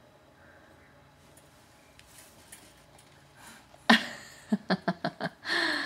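Baby's voice: quiet at first, then a sudden loud squeal about four seconds in, followed by a quick run of five short laugh-like bursts and a longer squeal near the end.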